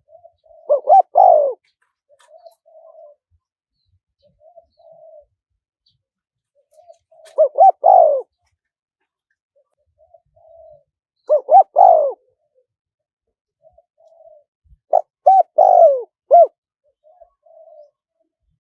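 Spotted dove cooing: a loud phrase of a few deep coos roughly every four seconds, with soft low coos in between, the last phrase longer with more notes. A decoy dove's call of the kind played to lure wild doves in.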